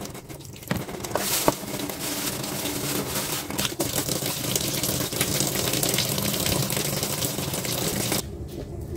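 Kitchen tap running hard into a stainless steel sink, splashing, then shut off suddenly about a second before the end. A plastic bag crinkles and a couple of knocks sound in the first two seconds.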